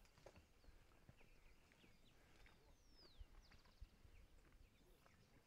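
Near silence with faint wild bird calls: scattered short chirps, a descending whistle about three seconds in and a quick run of notes just after it. Two soft low thumps come a little past three seconds.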